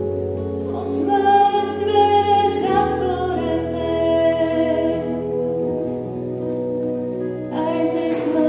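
Slow worship song: singing over long sustained chords.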